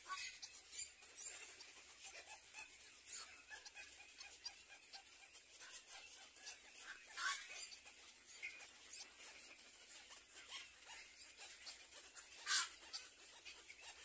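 Faint, scattered short chirps and clicks from a black-crowned night heron's nest with chicks, with two louder sharp calls, one about seven seconds in and one about twelve and a half seconds in.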